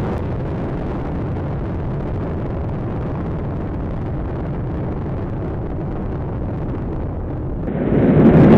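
Rocket launch rumble: a steady, deep noise of rocket engines climbing, which turns suddenly louder and fuller near the end.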